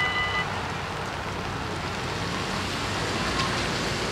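Dutch level-crossing bell ringing rapidly, cutting off about half a second in, then a steady hiss of rain.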